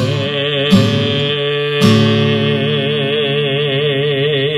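A man's singing voice holds the closing note of a hymn with a widening vibrato, over an acoustic guitar that strums a chord twice in the first two seconds and lets it ring.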